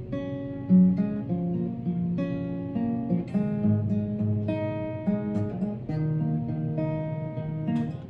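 Acoustic guitar played solo, chords strummed and picked in a steady rhythm, notes ringing into one another: an instrumental passage between sung lines of a song.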